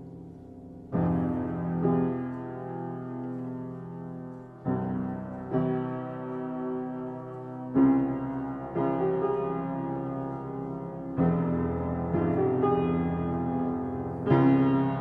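Slow piano music: sustained chords struck every one to three seconds, each dying away slowly, after a quiet held chord at the start.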